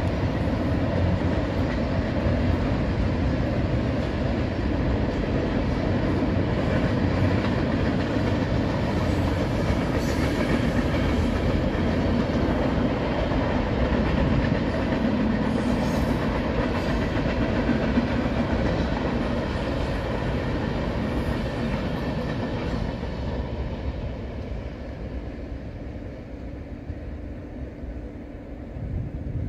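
Canadian Pacific freight train rolling past behind the trees: a steady rumble and clatter of wheels on rail that fades away over the last six seconds or so as the train moves off.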